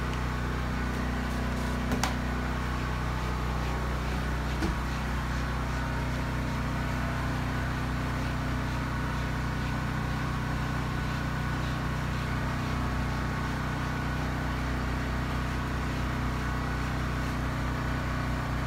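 Steady low mechanical hum of running machinery, with a buzzing pitch that holds even throughout; a faint click about two seconds in and another about four and a half seconds in.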